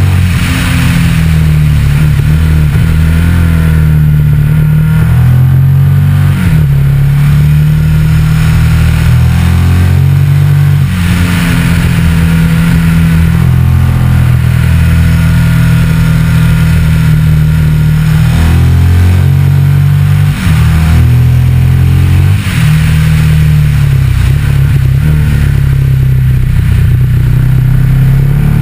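Motorcycle engine pulling under way, heard from a camera on the front fork. The engine note climbs, drops and climbs again a few times with throttle and gear changes, over a steady rush of wind and road noise.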